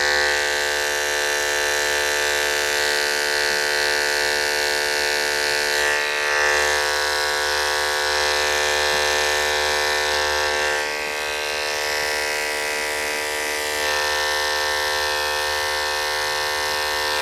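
Electric dog-grooming clipper with a size 40 blade running steadily as it shaves hair away from around a mole, with a slight shift in its tone twice as the blade works through the hair.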